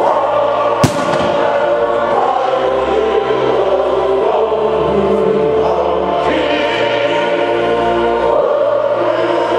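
Loud choral music with sustained massed voices, and a single firework bang about a second in.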